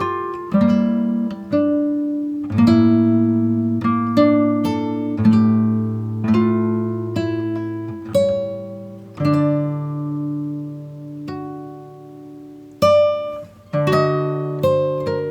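Background music: an acoustic guitar picking single notes and chords, each plucked note ringing out and fading.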